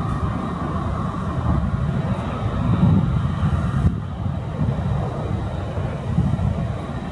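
Airbus A320neo's Pratt & Whitney PW1100G geared turbofans running at low taxi thrust as the jet rolls slowly toward the microphone, a steady jet noise with a faint high whine, mixed with gusty wind rumbling on the microphone.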